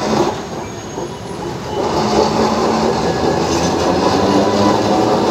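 Alexandria street tram rolling past at close range: the rumble and rattle of its steel wheels on the street rails. It grows louder about two seconds in as the car draws alongside.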